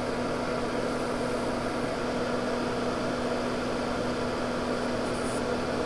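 Soldering fume extractor fan running: a steady hiss with a constant hum.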